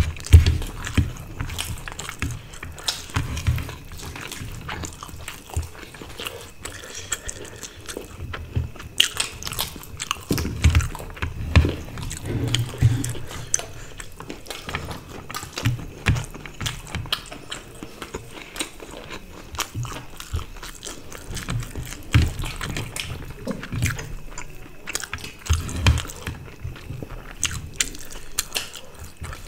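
Close-up eating sounds of two people eating rice and curry with their hands: irregular chewing and biting clicks with soft low thumps, along with fingers mixing rice and curry on plates.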